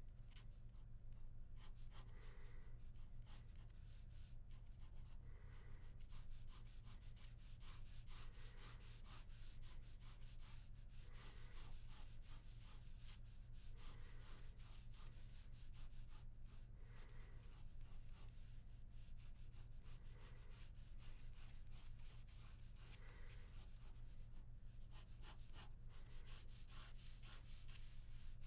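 Ballpoint pen scratching on paper in quick, repeated sketching strokes, faint.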